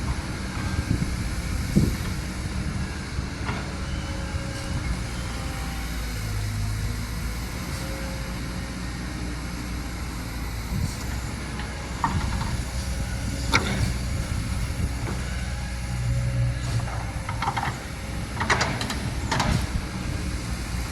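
Kobelco SK200 hydraulic excavator's diesel engine running steadily, with a few sharp knocks, most of them near the end.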